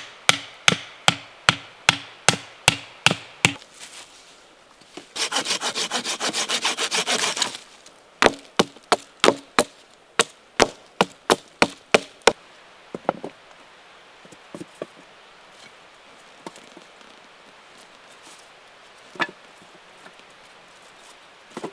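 Wood-on-wood knocks as forked wooden stakes are driven into the forest floor, about two to three knocks a second. A short spell of fast back-and-forth sawing with a folding saw comes in the middle, then more knocking. Near the end there are a few scattered light clacks of cut sticks being laid down.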